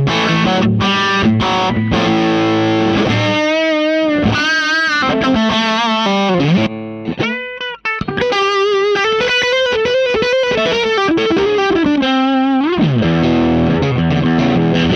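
Tomkins T-style electric guitar played through a Space Sounds Meteor Distortion pedal in its distortion clipping mode. Distorted strummed chords come first, then a single-note lead line with bends and vibrato, a downward slide, and chords again near the end.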